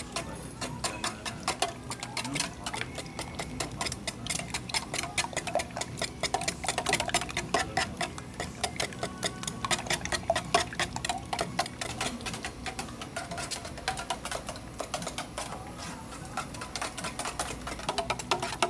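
Raw eggs being beaten fast in a stainless steel pan: a quick, steady clatter of the utensil striking the pan's metal sides and bottom, with the wet slap of the beaten egg.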